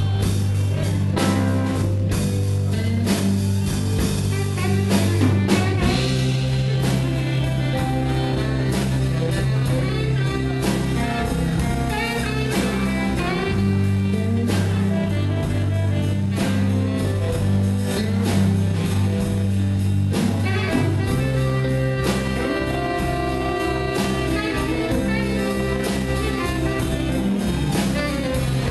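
Live blues band playing an instrumental passage with no vocals: drums, bass and guitar, with a sustained lead line on top.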